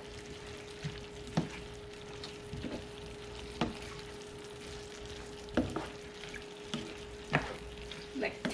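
Pork, red peppers and green onions sizzling in a skillet as they are stir-fried, with the spatula and tongs knocking against the pan every second or so. This is the last few seconds of cooking after the green onion goes in.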